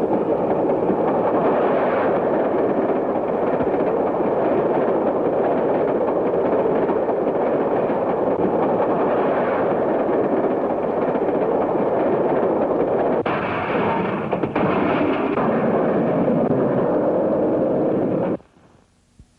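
Steam train rushing along as a dense, steady rumble with crackle on an early sound-film soundtrack. It shifts briefly about three-quarters of the way through and cuts off abruptly near the end.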